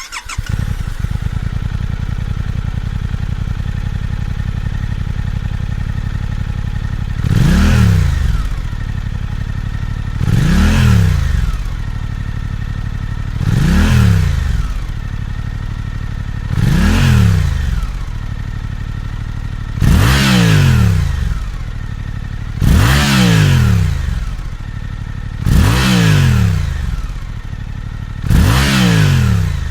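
Suzuki V-Strom 800's 776 cc parallel-twin engine with a 270-degree crank idling steadily, then blipped eight times, about once every three seconds, each rev climbing and dropping quickly back to idle.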